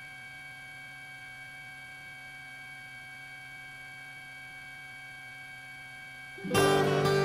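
Music: a soft held chord, then a loud strummed guitar comes in near the end.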